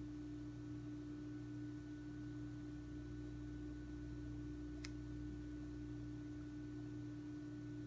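A steady low hum on one held pitch, with one faint click about five seconds in.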